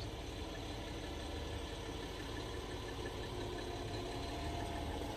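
Articulated lorry's diesel engine idling steadily, heard from inside the cab.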